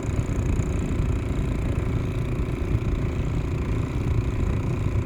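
A small boat's motor running steadily under way, a continuous low drone with no change in speed.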